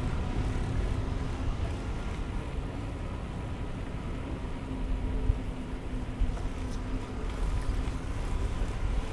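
Steady low rumble of wind on the microphone and tyre noise from a bicycle riding along a paved street, with a faint steady hum underneath.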